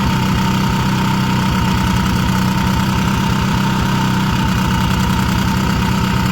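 WEN 4500-watt inverter generator's engine running steadily under the load of a rooftop RV air conditioner, a constant low hum with a faint high tone above it. The owner is unhappy with how it sounds under this load.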